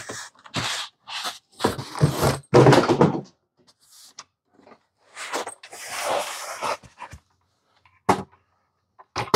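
Unpacking a metal conveyor feeder from its cardboard box: cardboard scraping and bumping as the unit is slid out and set down on a table. About halfway through comes a longer rustle of packing material, and short sharp knocks follow near the end.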